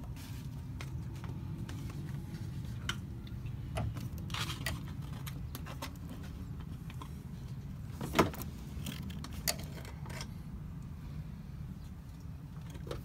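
Scattered light clicks and clinks of small parts being handled while searching for a drain-plug washer, with a sharper click about eight seconds in, over a steady low rumble.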